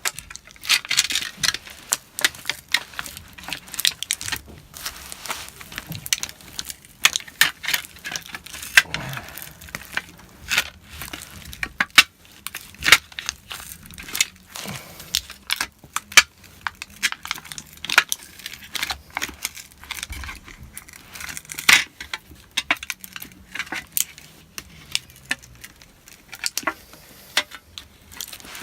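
Battery of an early 2013 MacBook Pro (A1398) being pried off the case against its strong adhesive: an irregular run of sharp clicks, crackles and tearing as the glue gives way.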